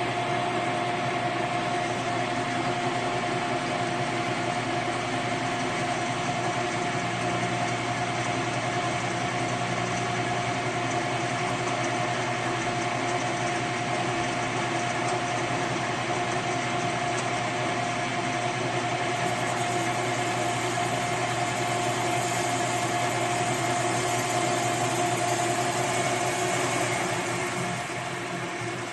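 Machine tool running steadily with a constant hum and whine, cutting the gasket surface of an air-cooled Porsche 911 SC cylinder head to resurface it. It eases off slightly near the end.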